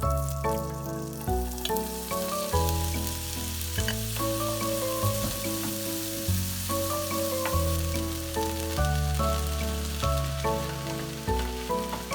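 Food sizzling steadily in a hot frying pan, under background music with a melody of held notes and a bass line that changes every second or so.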